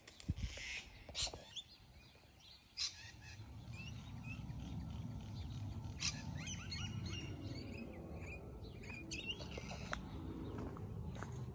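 Birds chirping, many short high calls scattered throughout, over a few footsteps early on. A low steady rumble comes up from about four seconds in.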